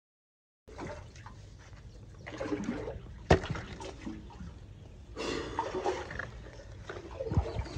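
Water and wet sewer sludge splashing and dripping around a metal bucket of tree roots pulled from a blocked drain, with a sharp knock about three seconds in and a louder wet spell a little after five seconds.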